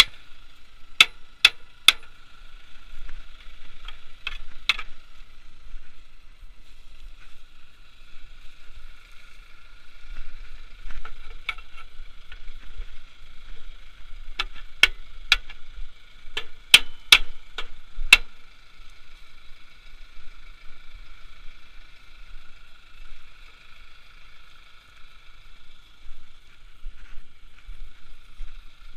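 Steel hammer head striking the steel body of a Vogel & Noot plough: sharp metallic blows in short groups of two to four, about half a second apart, which stop a little past halfway. A faint steady high buzz runs underneath.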